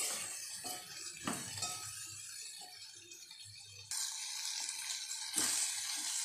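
Onions and curry leaves frying in oil in a steel pot with a hissing sizzle, as a metal spoon stirs them. A few clicks and scrapes of the spoon against the pot come in the first second or so, and the sizzle grows louder near the end.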